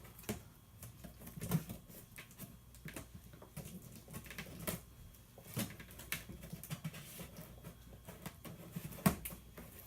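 Scattered scratches, taps and scrapes of a cardboard box being handled and opened, with a sharper click now and then, the loudest near the end.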